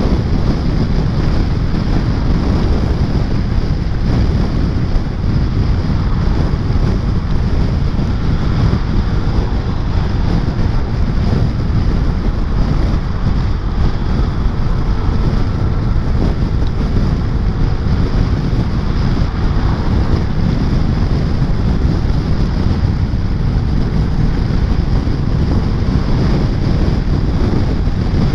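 Wind buffeting the microphone of a moving scooter riding through heavy rain: a loud, steady, deep rushing noise that covers everything else.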